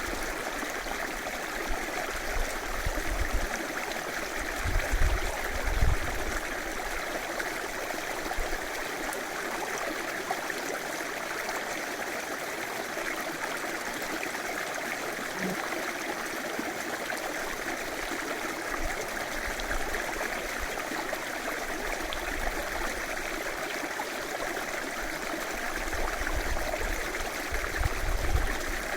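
A river running steadily, a constant rush of flowing water. A few brief low rumbles rise under it, the loudest about five to six seconds in and another near the end.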